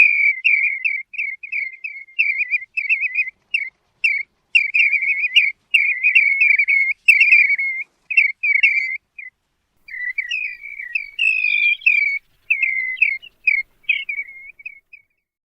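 A plover calling: a fast run of short, clear whistled notes. It breaks off briefly about two thirds of the way through, then resumes and stops near the end.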